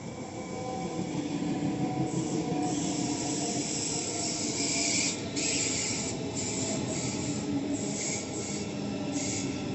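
ICE high-speed electric train passing close by on the rails: a steady rumble of wheels on track. Over it a hissing rush builds up, then breaks off and returns several times as the cars go past.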